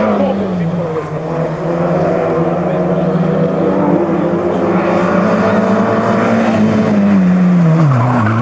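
Rally car engine held at high revs on a steady note, which drops in pitch near the end as the car passes close.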